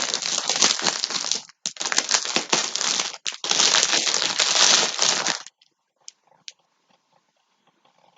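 Plastic packaging crinkling loudly as it is handled close to the microphone, in three stretches with two short breaks, stopping about five and a half seconds in; a few faint clicks follow.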